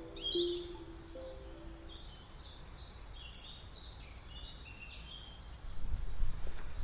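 Small birds singing in short high chirps and trills, with a soft bit of background music that stops about two seconds in. Near the end, wind gusts start buffeting the microphone with a low rumble.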